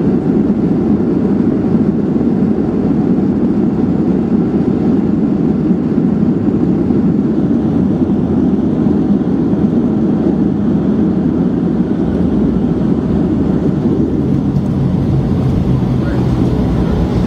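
Cabin noise inside a Boeing 737-700 rolling out after landing, with the ground spoilers up: a loud, steady roar. About fourteen seconds in, a steady low two-tone hum joins it.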